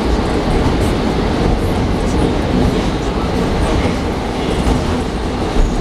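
81-740 Rusich metro train heard from inside the car by the doors while running at speed through a tunnel: a loud, steady rumble of wheels on rail.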